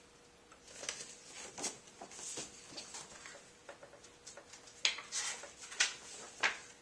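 Pages of a paperback picture book being turned and flipped, a light paper rustling with three sharper page flaps in the last two seconds.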